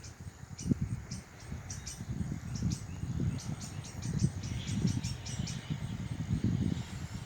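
Birds chirping in short, scattered calls over a low, gusty rumble of wind on the microphone.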